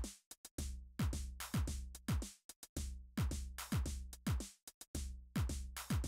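Background electronic music with a drum-machine beat: deep bass drums that fall in pitch under crisp, sharp percussion, the pattern repeating about every two seconds.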